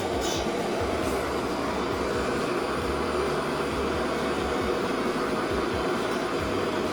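Gas torch flame burning with a steady roar, heating the steel petals red-hot. A couple of faint ticks come within the first second.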